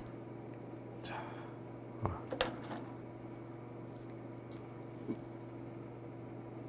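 Faint soft clicks and squishes of a steamed gooseneck barnacle being pried and peeled apart with fingers and metal chopsticks. A few scattered clicks, the loudest pair about two seconds in.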